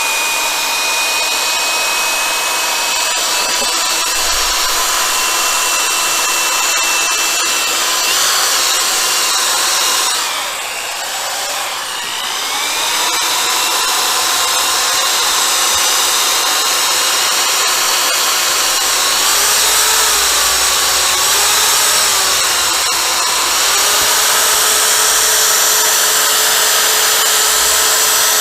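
Power drill spinning a wet sanding disc against a motorcycle windscreen, its motor whining steadily. It slows briefly about ten seconds in, and the pitch wavers and rises again later as the load on the disc changes.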